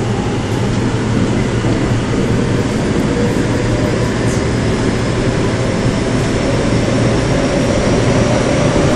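Running noise of a Korail Class 351000 IGBT electric multiple unit, heard from inside the passenger car: a steady dense rumble, with a faint high whine that climbs slowly from about halfway through.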